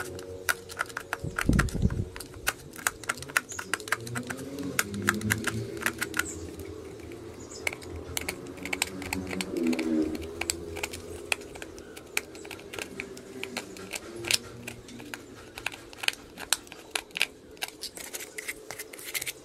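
Utility knife blade scraping and nicking the edges of small holes in a thin plastic cup, trimming them neat: a rapid, irregular run of small clicks and scrapes.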